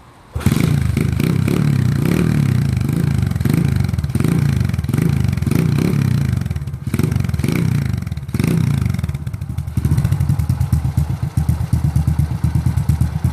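Honda C50 Super Cub's small single-cylinder four-stroke engine running, its revs rising and falling in repeated swells, then settling to a steadier, fast-pulsing idle about ten seconds in.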